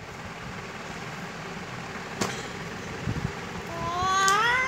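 A toddler's voice in one long, rising cry near the end, the loudest sound here. Before it, a small tap and a couple of soft knocks from the book being handled, over a steady background hiss.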